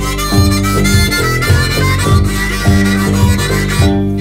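Background music: a band track with a steady beat and sustained melody notes over a bass line.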